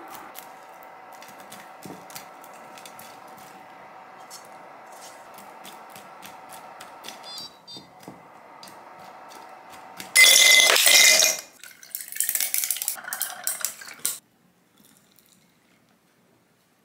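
Silicone spatula stirring and scraping sticky caramel popcorn in a frying pan, many small clicks over a steady hum from the tabletop cooktop, the hum stopping after about seven seconds. Around ten seconds in comes a loud stretch of scraping and rattling, then another, as the popcorn is worked in the enamel tray, and then it goes quiet.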